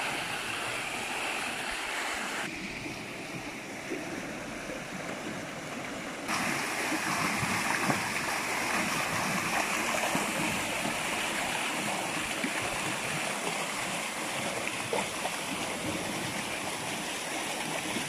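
Water from a spring flowing very fast, a steady rushing of running water. It turns quieter about two and a half seconds in and louder again about six seconds in.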